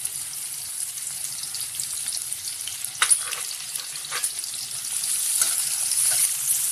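Chopped onions sizzling in hot oil in a metal kadai, a steady high hiss with a couple of sharp clicks in the middle. Near the end a spatula starts stirring them and the sizzle grows louder.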